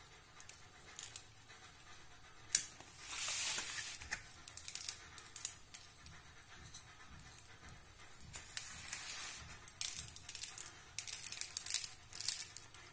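Faint rustling and patter of desiccated coconut flakes being sprinkled from a glass bowl and pressed onto a cream-covered cake by hand, with a sharp click about two and a half seconds in and a short pouring hiss just after.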